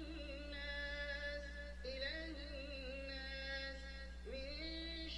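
A man's singing voice played back from an audio file: long held notes that waver and glide, in phrases with short breaks, over a steady low hum.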